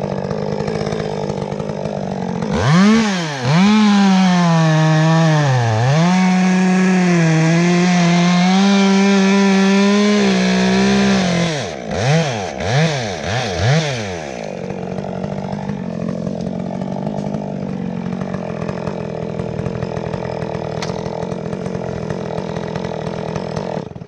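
Two-stroke top-handle chainsaw revving up and cutting into a sweet gum trunk for about seven seconds, its pitch dipping as the chain bites. Then a few quick throttle blips, and the saw settles to a lower, steady run.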